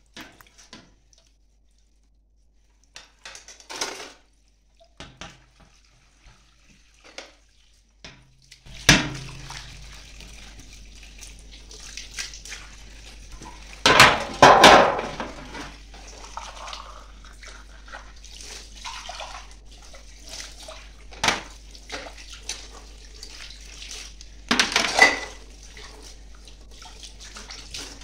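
Dishes being washed at a kitchen sink. A few light clinks at first, then the tap running steadily from about nine seconds in, with several louder clatters of a stainless steel tray and glassware knocking in the sink.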